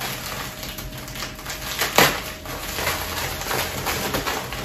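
Plastic mailer packaging crinkling and rustling as it is opened and handled, with one sharp loud crackle about two seconds in.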